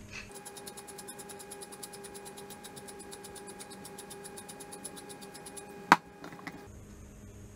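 A tall pepper mill being twisted to grind black pepper, making a fast, even run of clicks for about five seconds. A sharp knock follows near the end as the mill is set down on the counter, then a few small knocks.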